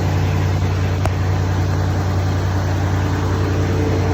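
Vehicle engine running steadily with a deep, even hum.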